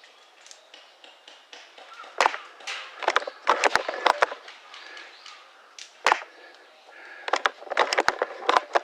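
Clusters of sharp cracks and clicks, several in quick succession about two seconds in, again around three to four seconds and near the end: airsoft gunfire and BBs striking cover on the field.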